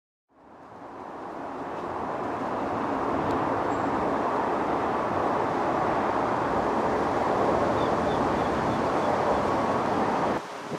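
Steady road traffic noise, an even hum that fades in over the first couple of seconds and cuts off abruptly near the end.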